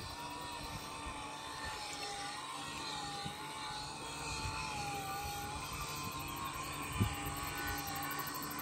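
Distant engine droning steadily, its whine wavering slowly up and down in pitch, with a single soft thump about seven seconds in.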